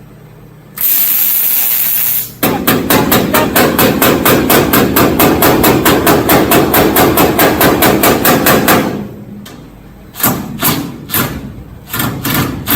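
Fast, even series of sharp hammer-like strikes on the truck's sheet metal, about five a second for some six seconds. A second-long steady hiss comes before them, and a few separate knocks follow near the end.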